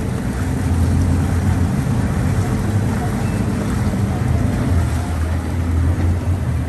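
Four Mercury 600 V12 outboard engines running together at low speed, a steady deep rumble with water noise around the hulls.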